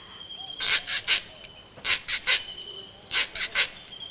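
Short, high squeaky chirps coming in small quick clusters, over a steady high-pitched insect-like drone.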